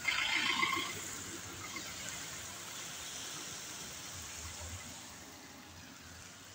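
Tyres of a passing van hissing on the wet road, loudest in the first second, then settling into a steady faint hiss that slowly fades.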